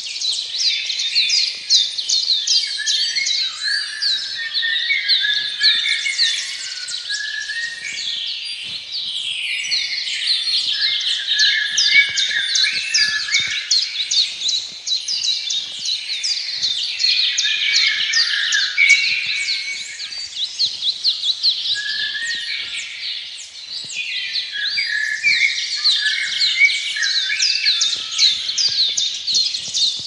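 Several birds singing at once in a dense chorus: rapid runs of short, high, sharp chirps over lower warbling phrases.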